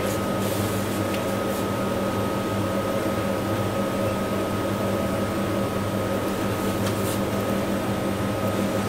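Steady mechanical room hum with a constant thin whine above it, and a few faint clicks.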